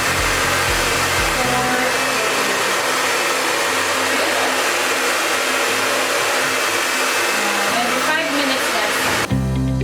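Remington Proluxe hair dryer with a diffuser attachment running steadily, a constant rush of air, with background music under it. About nine seconds in the dryer noise cuts off suddenly and only the music goes on.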